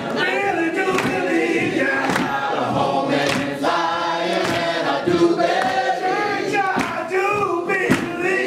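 Choir and congregation singing a gospel song, voices rising and falling, with sharp hits sounding through it.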